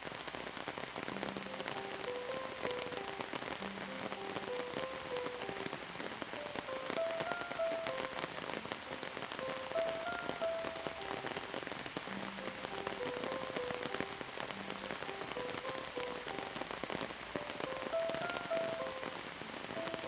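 Steady rain pattering on a surface, many fine drops, with a soft, slow melody of sustained notes playing over it and repeating every few seconds.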